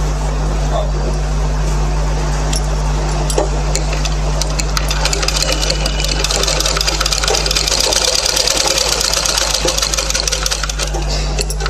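Sewing machine stitching a line of topstitching around a kurta neckline, the needle clicking rapidly. It starts up about four seconds in, runs fastest in the second half, and stops just before the end.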